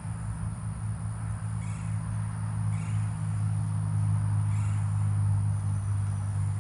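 A steady low engine hum that grows a little louder partway through, over a constant high insect drone, with a few faint chirps.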